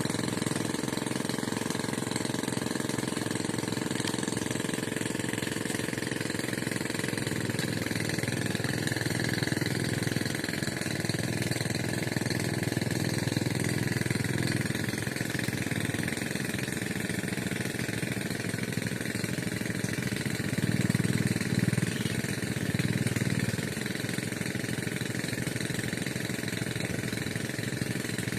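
Engine-driven water pump running steadily: a continuous, noisy mechanical drone that swells a little twice.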